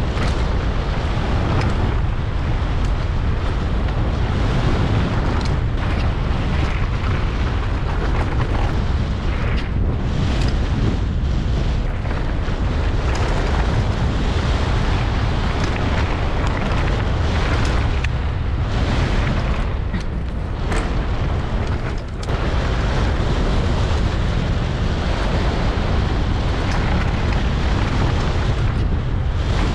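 Wind buffeting a GoPro's microphone during a fast downhill mountain bike run, a loud steady rumble, with tyre and frame rattle over rough trail and a few sharp knocks.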